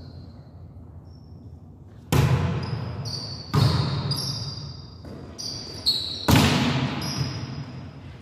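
Volleyball being struck during a rally in an echoing gym: sharp slaps of hands on the ball about two seconds in, again at three and a half, and twice close together near six seconds, with sneakers squeaking on the court floor in between.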